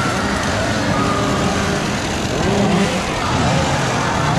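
Dense crowd chatter, many voices overlapping at once over a steady low hum.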